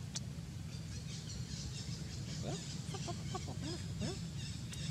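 A quick series of short animal calls, each rising in pitch, a little over two seconds in and lasting about two seconds.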